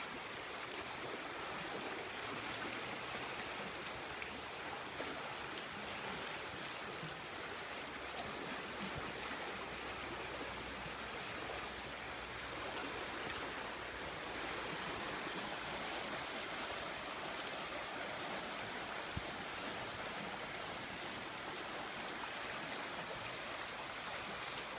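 Shallow, fast-flowing creek rushing over rocks: a steady, even rush of running water.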